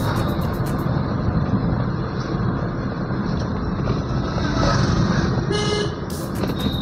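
Steady road and engine noise heard from inside a moving car, with a vehicle horn tooting briefly shortly before the end.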